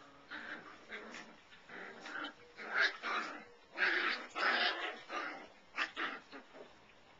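Five-week-old Labradoodle puppies yipping and whimpering in a string of short, high cries, loudest in the middle, stopping shortly before the end.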